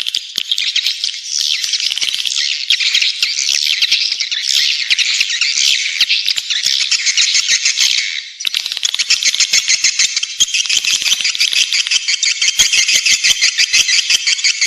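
Swiftlet calls played as a lure sound: a dense, high chorus of buzzy chirps and twitters. About eight seconds in it briefly dips and gives way to a fast, even rattling trill.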